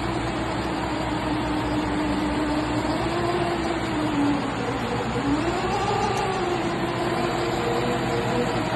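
New IPM hub motor of an Ola S1 Pro electric scooter running, with a steady tone that dips in pitch about halfway through and then rises again. There is no humming or vibration noise: the replacement motor has cured the hum of the faulty one.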